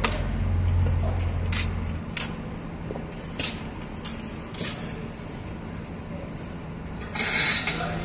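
Metallic clinks and jingles of hand tools and tools hanging from a belt as a mechanic moves about. A steady low hum stops about two seconds in, and a short loud noisy burst comes near the end.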